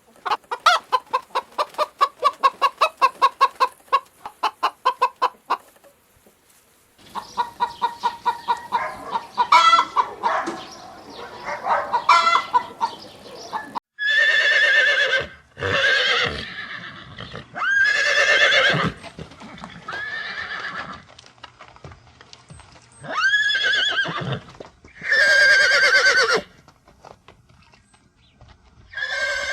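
Chickens clucking in fast, even runs of about seven clucks a second, then more irregular clucking, followed by a series of loud animal calls of about a second each, several opening with a rising pitch.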